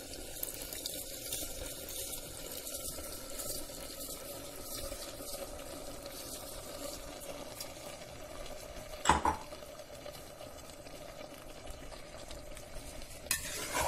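Sprouts masala simmering in an aluminium pressure cooker as soaked basmati rice is tipped in, giving a steady wet bubbling. There are two sharp knocks, the loudest about nine seconds in and another near the end.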